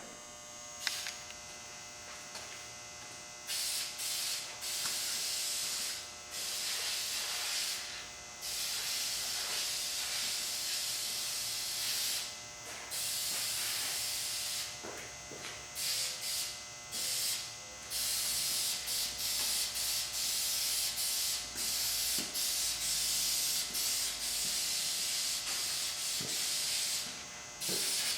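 Krylon aerosol spray-paint can hissing in repeated passes, at first long bursts of a second or more, then shorter, quicker bursts after about halfway: light coats of black paint being sprayed. A steady electrical hum sits underneath.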